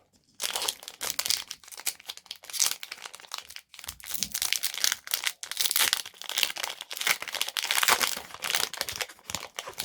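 Foil Pokémon TCG booster pack being torn open and crinkled by hand, a run of irregular crackling and tearing.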